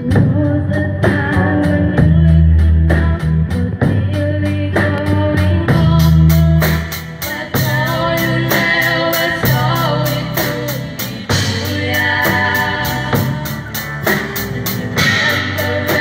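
A live band of electric, acoustic and bass guitars with a drum kit plays a song over a steady drum beat, while a trio of girls sings the melody into microphones.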